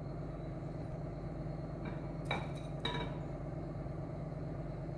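A few light metallic clinks on a stainless steel cooking pot about two to three seconds in, each with a short ring, over a steady low hum.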